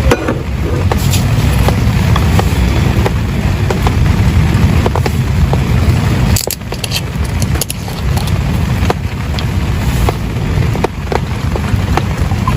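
Heavy rain on a tent, with sharp drop ticks over a deep, steady rumble; the rumble briefly eases about six seconds in.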